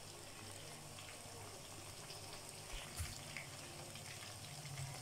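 Battered chicken pieces deep-frying in oil in a wok on low heat: a faint, steady bubbling sizzle with light crackles. A single light knock comes about three seconds in.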